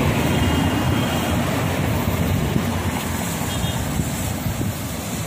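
Steady wind rush on the microphone from riding a bicycle, with road traffic underneath.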